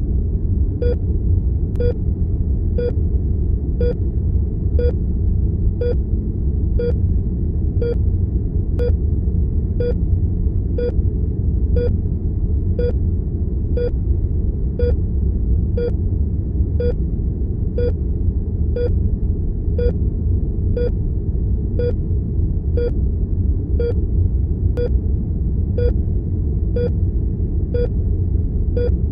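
Heart monitor beeping steadily about once a second, short single beeps at about 60 a minute, each marking a heartbeat. Under the beeps runs a steady low room-tone rumble.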